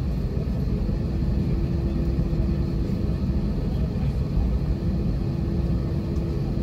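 Steady low cabin rumble of an Airbus A320 taxiing with its engines at idle, with a steady hum running through it.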